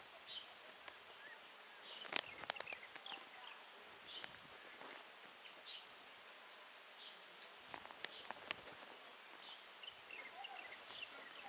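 Faint outdoor ambience: small birds chirping in short high notes about once a second, with a couple of quick descending runs of notes, over a steady high insect drone. A few sharp clicks come about two seconds in and again about eight seconds in.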